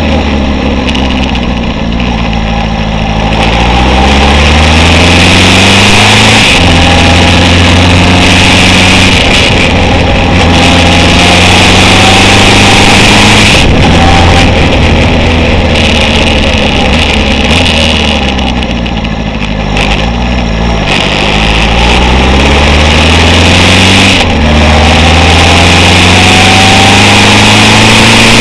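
Honda CB750 chopper's inline-four engine under way, rising in pitch as it accelerates and dropping back between pulls, easing off about two thirds of the way through before pulling again. Strong wind rush on the microphone throughout.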